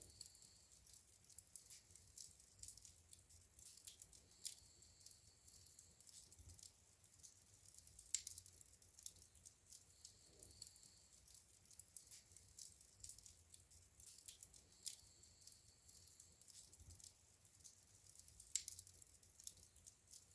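Wood fire in a fireplace crackling quietly, with frequent small crackles and two sharper pops, one about eight seconds in and one near the end.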